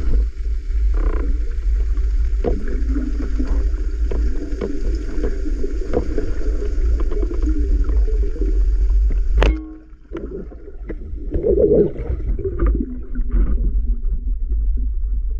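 Underwater sound picked up through a camera housing: a low rumble with scattered clicks and gurgles, broken by a sudden cut about nine and a half seconds in.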